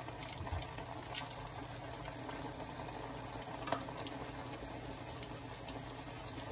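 Egg-battered tortilla chilaquiles frying in hot oil in a skillet: a steady sizzle with fine crackles, and one sharp tap about three and a half seconds in.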